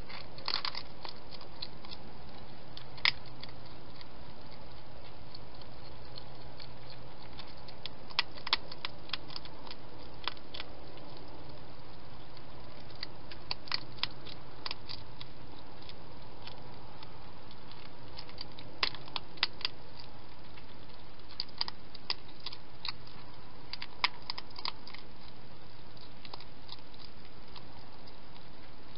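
Wild hedgehog eating, with irregular clusters of crisp crunching clicks every few seconds over a steady low hum.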